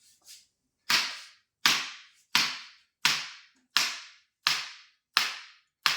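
A regular series of eight sharp cracks, one about every 0.7 seconds, each with a short fading tail.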